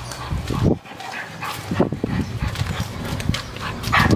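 A muzzled pit bull on a leash walking up close over concrete, making a string of short, irregular sounds of steps and breathing.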